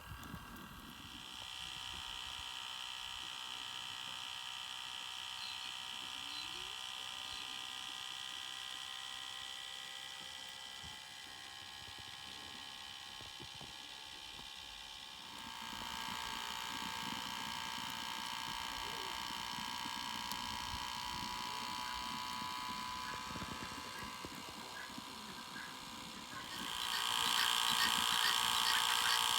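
Small battery-powered rotisserie motor (two D-cells) running steadily with a thin whine as it turns the spit. The whine changes pitch about halfway through and gets louder near the end.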